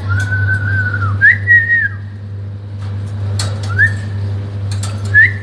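A parrot whistling a few clear, steady notes, some sliding up to a higher held note and dropping off at the end, over a steady low hum.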